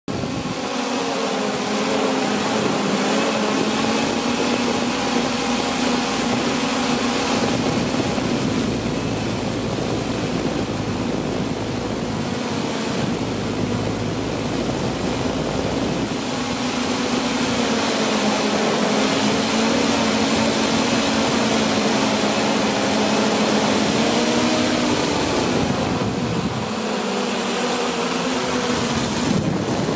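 Multirotor (octocopter) drone's electric motors and propellers in flight: a steady buzzing hum whose pitch wavers slightly as the motors adjust, over a constant hiss.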